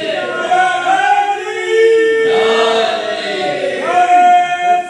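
A crowd of men's voices chanting together, with long held notes that rise and fall.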